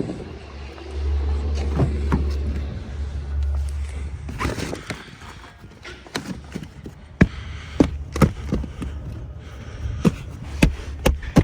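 A low rumble in the first few seconds, then a run of irregular sharp clicks and knocks through the second half.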